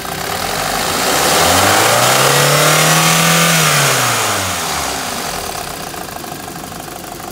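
Volkswagen Passat B6's 2.0-litre FSI four-cylinder engine (code BVY) revved up to about 5000 rpm, held there for a couple of seconds, then dropping back to a steady idle.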